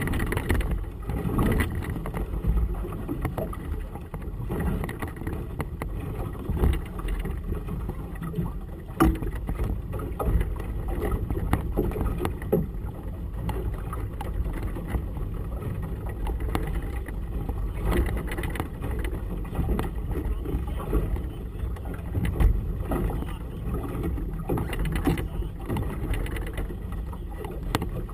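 Gusty wind buffeting the microphone of a boat-mounted camera over choppy water, with water splashing against the hull and a few brief knocks.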